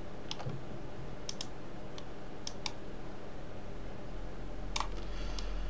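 Computer mouse buttons and keyboard keys clicking: about seven short, separate clicks spread out, with no regular rhythm.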